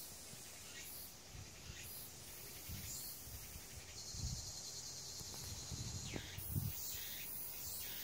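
Quiet outdoor ambience: a steady high hiss with a few low rumbles, and a faint, even higher buzz for about two seconds around the middle.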